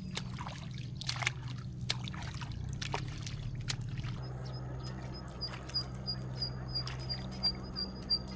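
Water trickling and dripping in the rain, scattered sharp drips over a steady low hum. From about four seconds in, a short high chirp repeats about three times a second.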